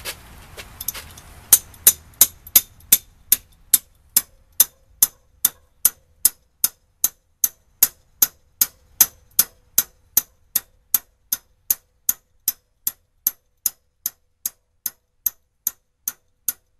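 A hammer tapping the metal wedges into the top of a broadfork's wooden handle to tighten it in its socket: sharp metallic taps in a steady rhythm of about two or three a second, loudest near the start and slowly softening.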